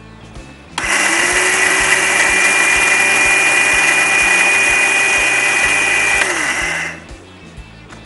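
Electric mixer grinder (mixie) dry-grinding roasted whole spices and lentils in its steel jar: it starts about a second in, runs steadily for about six seconds, then slows and stops as it is switched off.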